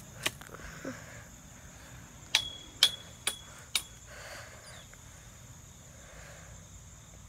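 Four sharp metallic taps about half a second apart, each leaving a short ringing ping, as the metal rail of a chain-link fence is struck; a single dry click comes a couple of seconds before them.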